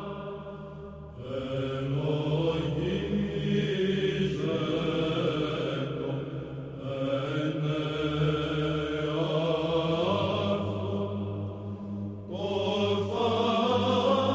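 Byzantine chant sung by monks' voices: a melody over a held drone (ison). There are short breaks between phrases, and the drone shifts to a new pitch about ten seconds in.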